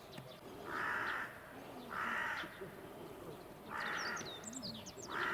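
A crow cawing four times, harsh calls about half a second long, evenly spaced, with faint chirps of small birds behind.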